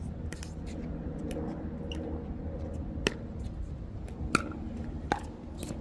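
Wind rumbling on the microphone, with a few sharp pops of pickleball paddles and balls, the loudest about three and four and a half seconds in.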